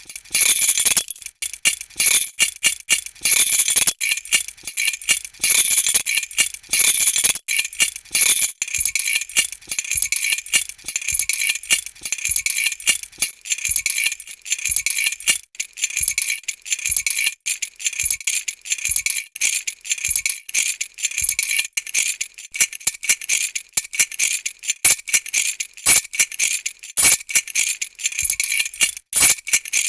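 A bunch of metal keys jangling continuously as they are shaken, a dense, bright clinking of many small metal-on-metal hits.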